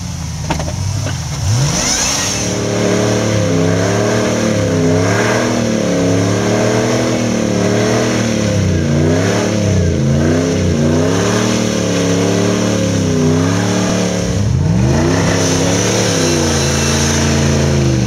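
An off-road 4x4's engine revs up and down over and over under load, its pitch rising and falling. About fourteen seconds in the revs drop sharply, then climb again.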